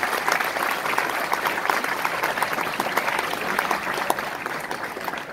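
Audience applauding, many hands clapping at once, dying down near the end.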